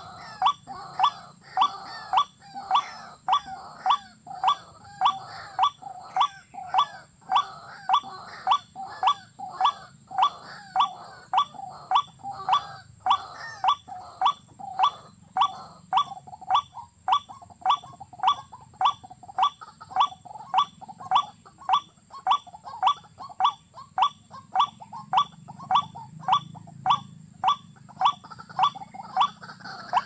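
Watercock calling: a short, sharp note repeated at a very even pace, about three calls every two seconds, over a steady high hiss.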